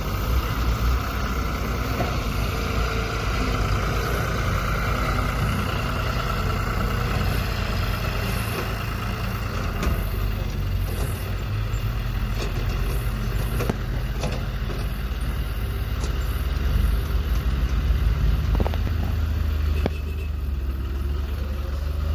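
A battery-powered toy excavator's small electric motor whining steadily over a heavy low rumble; the whine fades about halfway through.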